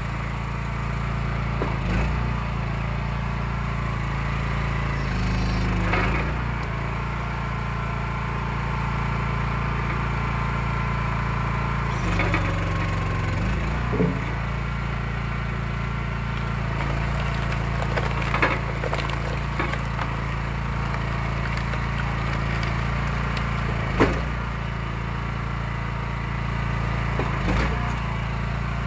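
Eastonmade 12/22 hydraulic log splitter running steadily on its engine. The engine note sags twice as the ram drives through a log under load. Sharp cracks of wood bursting apart come about six times, the loudest near the end.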